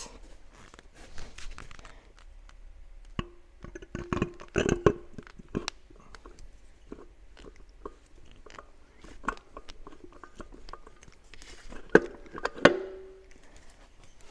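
Torque converter being slid by hand onto a TH350 automatic transmission's input shaft: scattered clicks and scrapes of metal on metal, with a few clunks that ring briefly about four seconds in and again near the end as the splines mesh and the converter seats.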